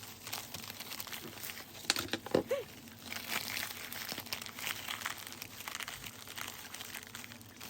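Thin plastic disposable gloves crinkling and rustling as they are pulled on by hand, in many small irregular crackles.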